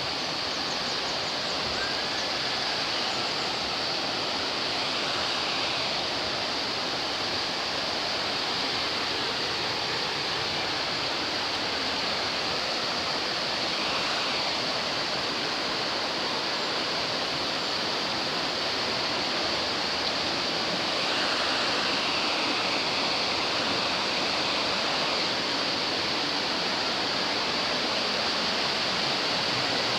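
Fast-flowing river water rushing steadily in an even hiss.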